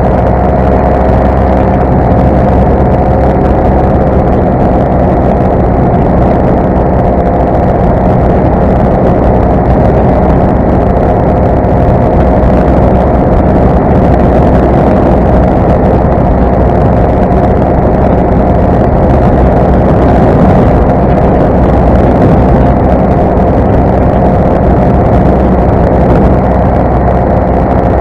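Parajet Zenith paramotor's two-stroke engine and propeller running steadily in flight, a loud, even drone at a constant pitch.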